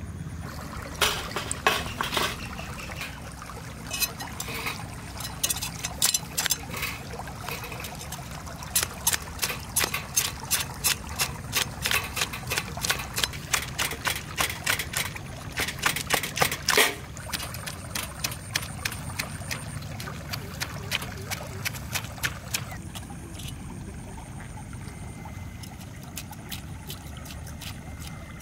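Large catla fish being scaled with a knife: sharp scraping strokes, a few at first, then quick runs of about three a second, thinning out to occasional strokes in the second half.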